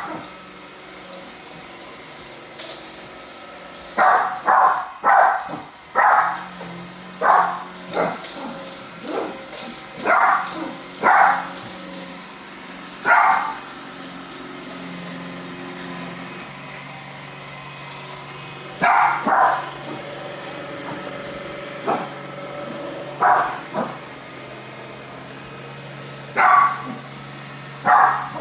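A dog barking repeatedly at a Roomba robot vacuum, in short runs of one to four barks with pauses between them. The robot vacuum's steady motor hum runs underneath.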